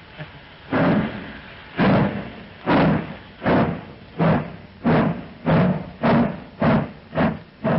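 Steam locomotive chuffing as it starts a passenger train. The exhaust beats begin about a second in at roughly one a second and quicken to nearly two a second as the train gathers speed.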